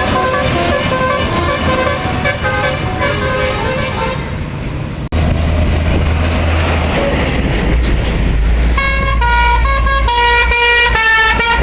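Bus 'telolet basuri' musical horns playing a quick stepping melody of separate notes, broken off suddenly about five seconds in. Then a bus engine runs low and steady, and the melodic horn starts again near nine seconds in, playing another run of stepped notes.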